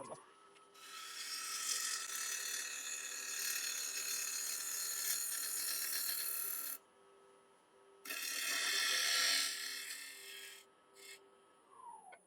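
Wood lathe spinning up, then a bowl gouge cutting across the end of a spinning walnut bowl blank in two long passes to true it up and take out flat spots. The lathe winds down near the end.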